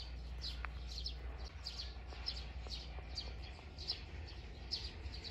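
A small bird chirping repeatedly, short falling high notes about two a second, over a low steady rumble.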